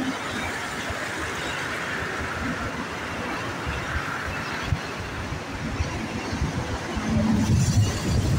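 Regional jet on approach, its engines a steady distant jet hiss. Low gusts of wind buffet the microphone, growing stronger near the end.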